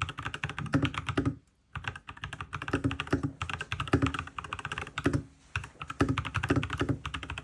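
Custom mechanical keyboard being typed on in quick runs of keystrokes, a fast clatter of key clicks that breaks off briefly twice.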